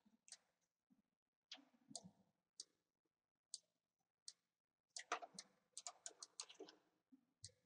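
Computer mouse and keyboard clicks, faint and scattered, with a quick run of clicks about five seconds in.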